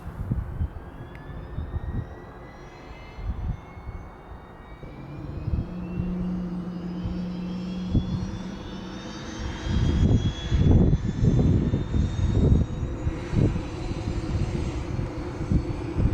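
MD 500E helicopter's Allison 250 turboshaft engine starting up: a whine rising slowly and steadily in pitch as the turbine spools up. From about ten seconds in, low beating noise grows louder as the rotor gathers speed.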